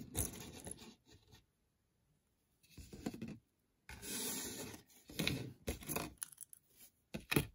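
Rustling and rubbing from hands sorting through costume jewelry and its packaging, in several short bursts broken by silent gaps.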